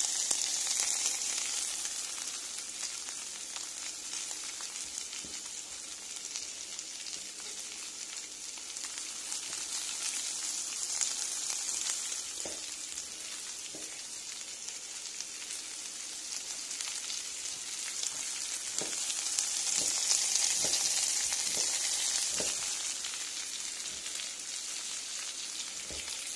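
Diced pork fat (salo) sizzling in a frying pan as it begins to render: a steady hiss that swells and eases, with a few faint ticks in the second half.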